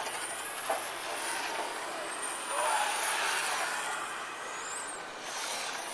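Radio-controlled racing motorcycles running around the track, their motors giving a high whine that glides up in pitch as they accelerate.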